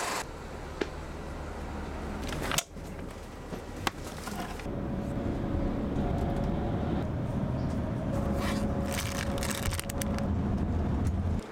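Steady low engine and road rumble heard from inside a moving coach, louder after the first few seconds. Crinkling of a plastic sweet bag about eight to ten seconds in.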